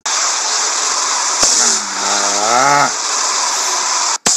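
Steady, loud rushing wind-like noise from a snow-and-slingshot filter effect, with a sharp click about a second and a half in. Over it a man gives a drawn-out cry that rises and then falls. The noise cuts off abruptly near the end.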